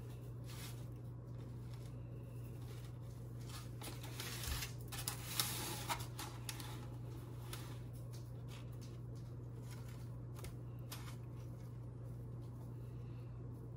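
Hands rubbing seasoning into the skin of a raw turkey in an aluminium foil pan, with soft rustling and crackling from the pan and the bird, busiest from about four to six seconds in, over a steady low hum.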